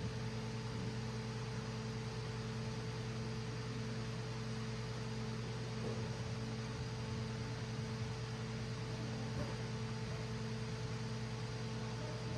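Steady electrical mains hum, a low drone with a few fixed overtones, over a faint even hiss of room noise.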